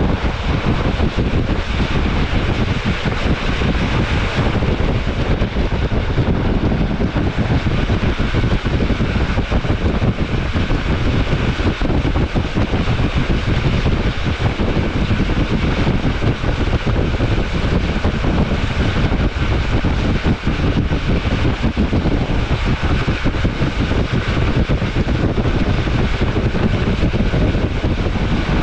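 Metre-gauge Rhaetian Railway train running along the line: a steady, unbroken mix of wheel-on-rail rumble and rushing air, with no distinct clacks or changes.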